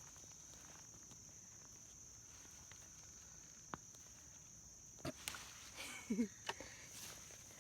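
Insects, likely crickets, keep up a steady high-pitched drone, with a few knocks a little after halfway and a short low sound about six seconds in.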